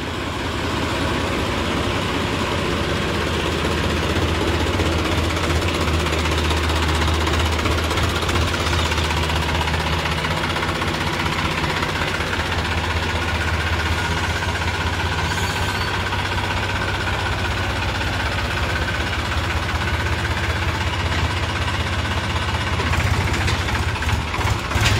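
Massey Ferguson diesel tractor engine running steadily while the tractor moves off towing a loaded trolley, a little louder near the end.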